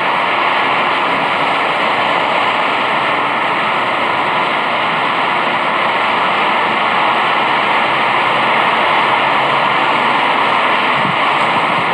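A steady, loud rushing noise with no breaks or separate events.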